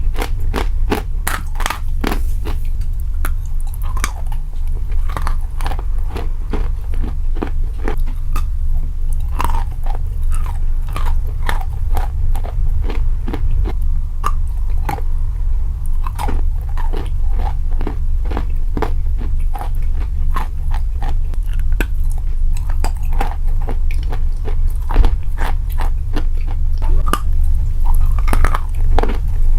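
Close-up chewing and biting of crunchy food, a dense run of crisp crunches several times a second, over a steady low rumble.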